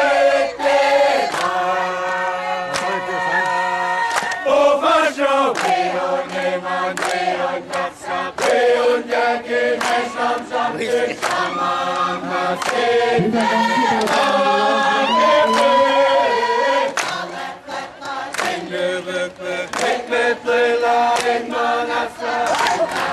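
A large crowd singing a song together in chorus, many voices holding one tune, with sharp hits scattered through the singing.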